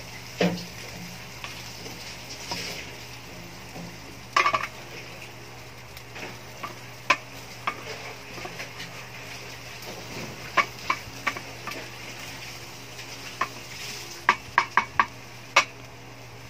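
Squid stir-fry being stirred in a metal wok over a gas flame: a steady low sizzle with scattered sharp clinks of the stirring utensil against the pan, five in quick succession near the end.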